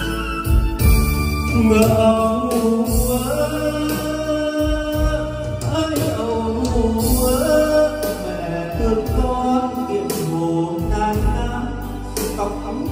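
A man singing a slow Vietnamese song into a karaoke microphone over backing music with a heavy bass line, played back through a WeeWorld home karaoke set of C12 speakers and a subwoofer in the room.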